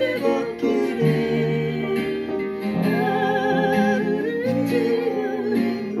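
A woman singing a slow ballad with vibrato over acoustic guitar, accompanied live on an upright piano. Her long held notes waver over sustained piano chords.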